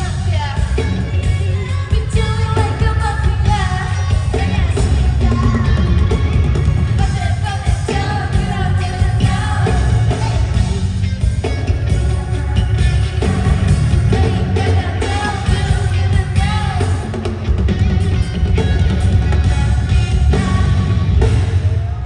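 Live band playing a pop song with heavy bass and drums while singers sing the melody over it.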